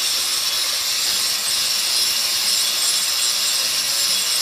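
Handheld angle grinder cutting into a precast concrete baluster, a steady grinding whine that holds without a break.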